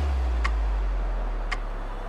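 Background music: a deep bass note that starts suddenly and slowly fades, with two sharp ticks about a second apart.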